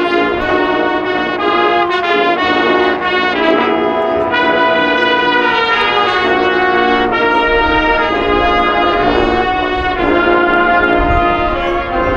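Marching band playing its field show, the brass section sounding loud held chords that shift every one to two seconds.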